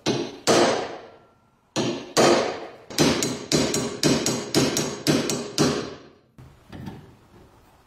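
Hammer striking a steel pin punch to drive the pin out of a rusty bread cutter's handle: a series of sharp metallic blows, each ringing briefly. The blows come in a fast run of about three a second in the middle, then a few lighter taps near the end.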